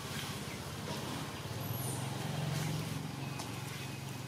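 A low, steady engine hum, with a brief high chirp about two seconds in.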